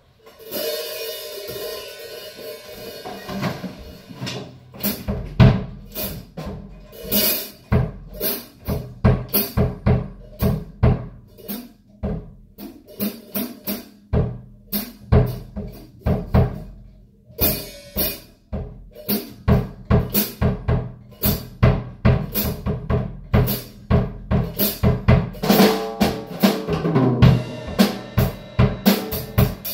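Drum kit played solo. A ringing cymbal wash opens, then about five seconds in bass drum, snare and cymbals come in with a steady groove and fills. There is a brief break about halfway through, and the playing gets busier near the end.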